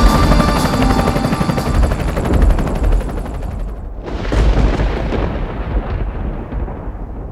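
Loud backing music breaks off just before four seconds in. A deep boom follows, trailing off in a long low rumble while its high end fades away, like thunder.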